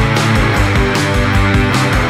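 Loud rock music with a fast, steady bass-and-drum pulse and cymbals over dense guitar.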